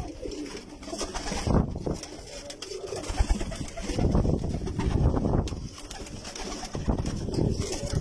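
Several red domestic pigeons cooing together, low overlapping coos coming in repeated swells.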